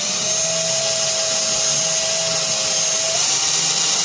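Small electric drill running steadily, drilling out the rivet post of a Hot Wheels die-cast car to separate body from base; its whine steps slightly higher about three seconds in and stops at the end.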